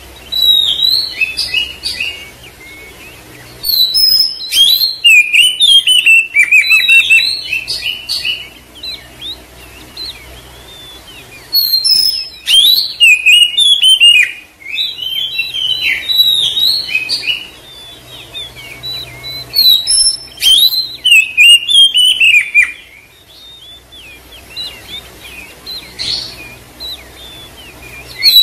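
Oriental magpie-robin (kacer) singing in about five loud bursts of rapid, varied whistled phrases and chatter, with softer twittering in the pauses between them.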